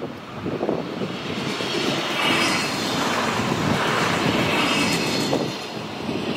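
A train passing over a level crossing: a loud, even rush that builds over the first two seconds, holds, and eases slightly near the end.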